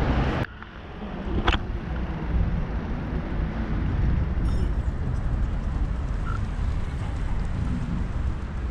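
Wind buffeting the microphone of a camera riding on a moving bicycle: a steady low rumble, with one sharp click about a second and a half in.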